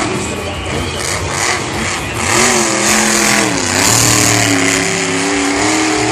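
Grave Digger monster truck's supercharged V8 engine revving hard. The pitch climbs, dips briefly past the middle, then holds high through the second half.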